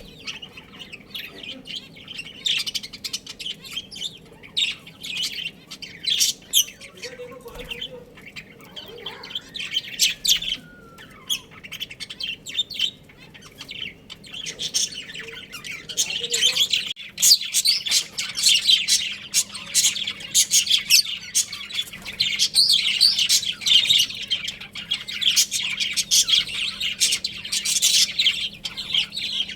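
Budgerigars chirping and chattering: many quick, overlapping high chirps and squawks, getting busier about halfway through.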